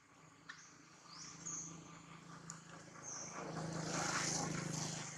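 A passing motor vehicle: a steady engine hum that builds from about a second in, is loudest around four seconds, then begins to fade. A few short, high, rising chirps sound over it in the first half.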